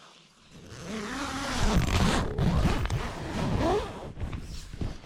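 A tent door zip being drawn open in long, rasping pulls, starting about half a second in.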